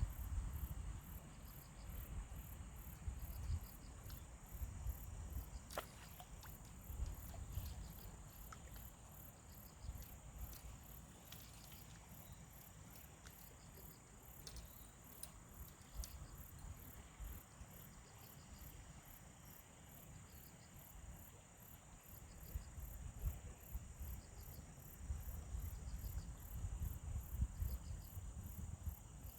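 Insects chirping in a steady, evenly pulsed rhythm, with a second insect trilling in short repeated bursts, over a low rumble of wind on the microphone that swells near the end.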